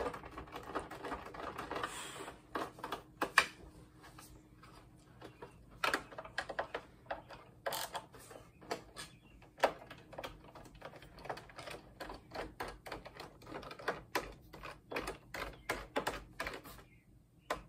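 Irregular light clicks and taps of a screwdriver and screws working against the plastic housing of an old monitor being taken apart.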